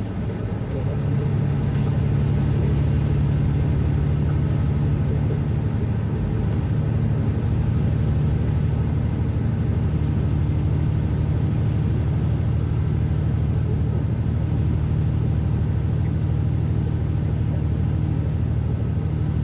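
Semi truck's diesel engine running at road speed, heard inside the cab as a steady low drone over road noise. A faint high whine rises about a second in, as the engine's drone gets louder, and then holds.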